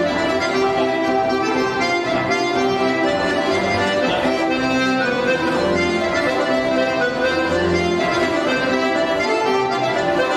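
Accordion playing a polka tune for folk dancing, running at an even level.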